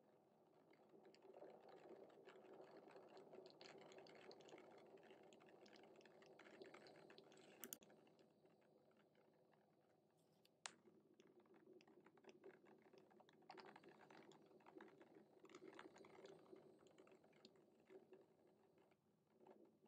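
Near silence, with faint crackling and scattered small clicks.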